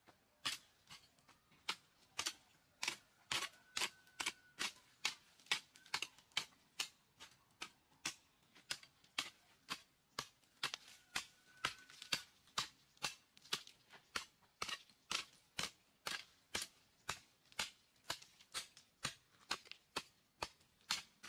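A metal hoe blade chopping into stony, packed dirt in quick, steady strokes: a sharp clack about two to three times a second.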